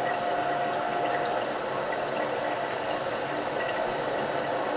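Allied High Tech M-Prep 3 grinder/polisher running, with its water lubricant stream running steadily onto the spinning sandpaper-covered platen. A steady tone is heard with it until about a second and a half in.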